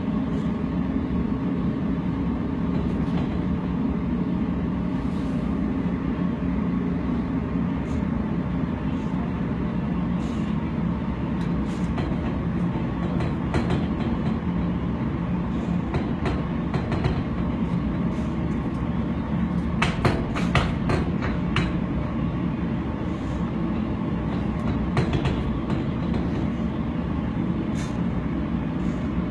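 A steady low rumble, like machinery or a large fan running, with scattered light clicks and taps over it and a quick cluster of them about twenty seconds in.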